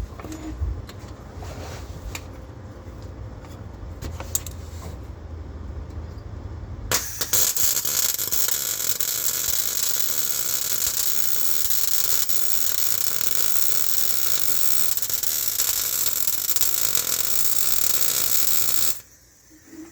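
Electric welder's arc on a steel crossmember mount bracket: a steady hiss that starts suddenly about seven seconds in, runs for about twelve seconds and cuts off sharply near the end. A low hum and a few clicks come before it.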